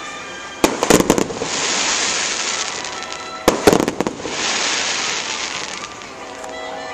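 Fireworks going off: two volleys of sharp bangs, one about a second in and one about three and a half seconds in, each a quick string of cracks, over a steady rushing noise.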